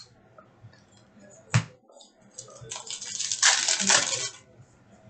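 Foil wrapper of a 2019-20 Upper Deck Series 2 hockey card pack crinkling for about two seconds as it is torn open, after a single sharp click about a second and a half in.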